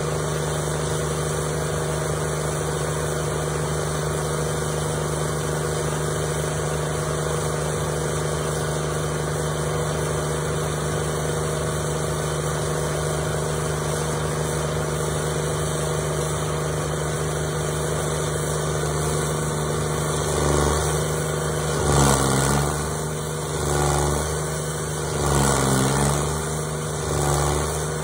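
Intimidator stump grinder's engine running steadily. From about two-thirds in, the engine note swells and sags every couple of seconds as the cutting wheel is swept back and forth through the stump under load.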